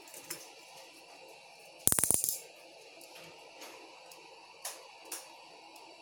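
A small metal hand tool clattering: a burst of quick rattling knocks about two seconds in, lasting about half a second, with a few light single clicks before and after.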